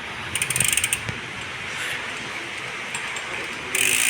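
BMX rear hub's freewheel pawls ratcheting as the wheel is spun by hand: a quick run of rapid clicks shortly after the start, then near the end a louder steady buzz as the wheel is spun harder.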